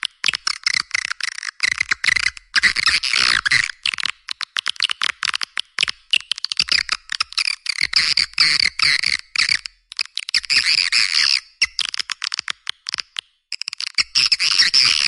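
Recorded swiftlet call used as a lure sound: dense, rapid, high twittering chirps in bursts, with short gaps before the chatter resumes. The recording has no low end, only the thin, high chirping.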